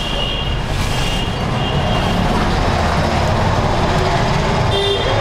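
Steady low rumbling background noise, with faint thin high tones that come and go in the first two seconds and again near the end.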